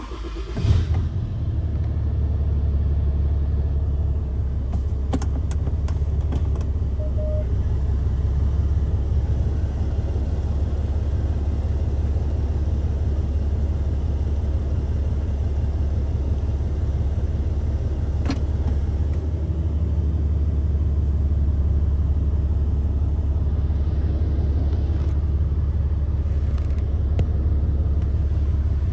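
Ram 3500's 6.7-litre Cummins inline-six turbo diesel starting up and settling into a steady low idle within the first second, heard from inside the cab. A few light clicks sound over the idle.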